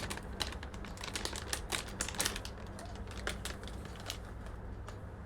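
Plastic packet crinkling and crackling in irregular sharp clicks as a diecast model airliner is pulled out of it. The crackles are densest in the first couple of seconds and thin out later.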